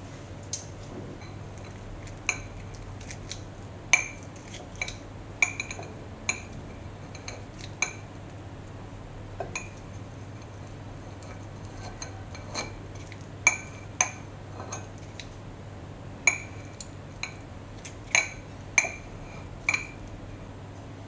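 Metal tongs and kitchen scissors clinking against a ceramic plate while a cooked chicken thigh is cut up, with sharp clinks at irregular intervals.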